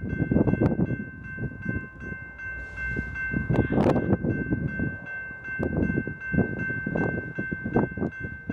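Railroad grade-crossing bell ringing steadily over gusty, irregular low rumbling of wind on the microphone.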